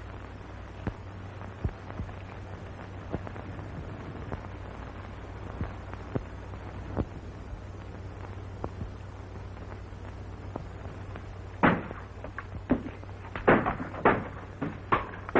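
Steady hum and hiss of an old film soundtrack with faint clicks, then, about twelve seconds in, a run of sharp knocks as stones thrown by the boys strike the house.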